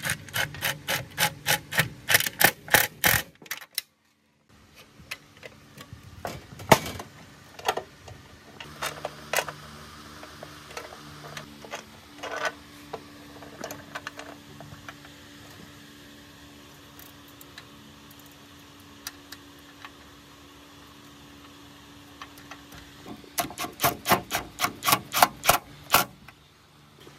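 Cordless impact driver hammering as it drives bolts, in two spells: one at the start and one near the end, each a fast run of sharp clicks. Between them, metal parts knock and clink as they are fitted by hand, over a faint steady hum.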